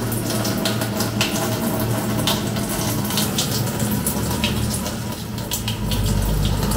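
Electric fuel pump running continuously, draining the ethanol-and-gasoline fuel left in the Fiat Uno's tank out through the fuel line: a steady hum with fuel streaming and splashing. The low hum grows louder near the end.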